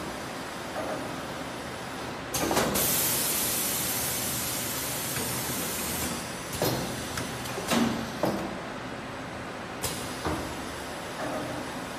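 Automatic bottle shrink-wrapping machine running, with several clunks and knocks from its moving parts. A long, loud hiss starts about two seconds in and stops about four seconds later.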